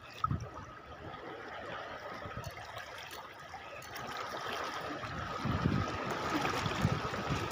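Seawater lapping and trickling against the rocks at the water's edge, a steady watery wash that grows a little louder toward the end.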